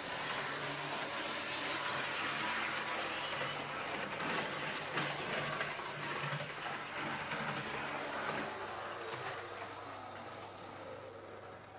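Locomotive running along the track, compared for its motor noise: a steady rushing noise over a low hum, fading away over the last few seconds.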